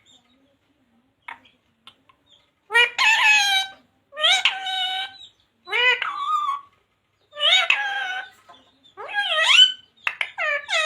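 Pet parrot vocalizing in six loud, pitched runs of about a second each, starting about two and a half seconds in.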